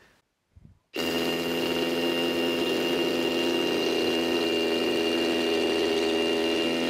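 Hilti Nuron TE 4-22 cordless SDS-Plus rotary hammer drilling into a concrete block in hammer mode. It starts about a second in and runs steadily and loudly at an even pitch.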